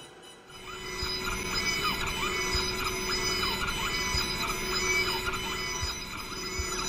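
DGSHAPE DWX-42W wet dental mill grinding a block under water-jet coolant: spraying water with a spindle whine whose pitch repeatedly sweeps up and down. It gets much louder about a second in, as the cutting gets going.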